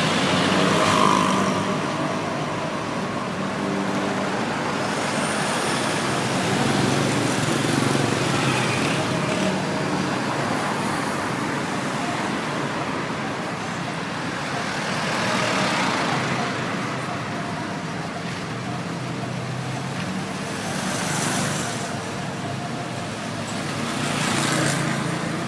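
Road traffic: a steady low engine hum with vehicles passing by, swelling and fading about five times.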